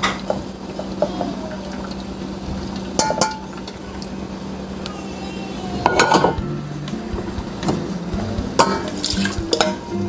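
Stainless steel mesh strainer of cooked mixed seafood knocking and clinking against a metal pot as the cooking liquid drains off, with sharp clinks about three, six and nine seconds in, the loudest near six seconds.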